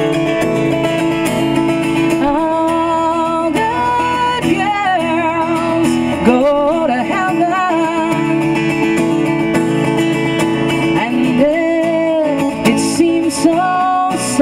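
A song: a woman singing long, wavering held notes without clear words over a strummed guitar.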